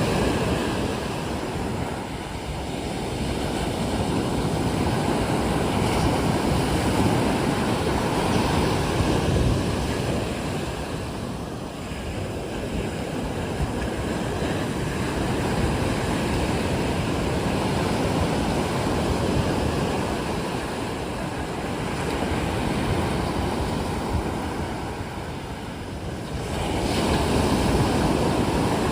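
Sea waves surging onto the shore, a continuous rush that swells and falls back every several seconds, with a fresh surge near the end. Wind buffets the microphone.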